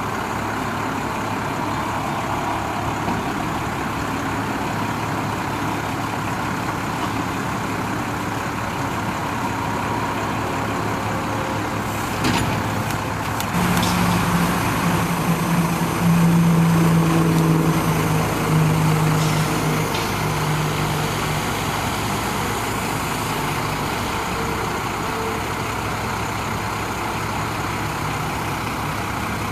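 Cummins 5.9L diesel engine of a Ford F800 work truck running steadily. Around the middle there are a few sharp clicks, then for about seven seconds a louder drone with a steady pitch, which fades back to the plain idle.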